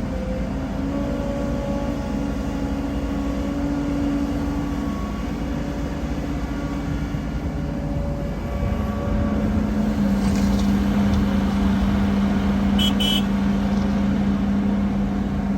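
Diesel engines of heavy earthmoving machinery running steadily; the engine note shifts lower and gets louder about nine seconds in. A brief, high-pitched double squeak sounds about thirteen seconds in.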